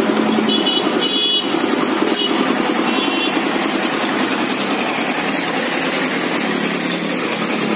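Street traffic: vehicle and motorcycle engines running steadily, with short horn beeps in the first few seconds.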